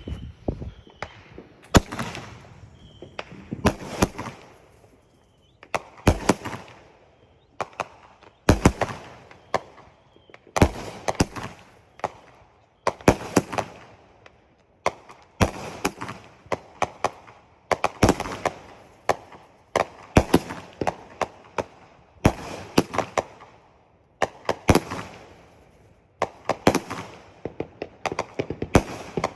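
A 20-shot, 200-gram consumer firework cake firing its shots one after another, about one every two seconds. Each shot is a sharp launch report followed by a quick cluster of bangs and crackles as the shell breaks, then fades.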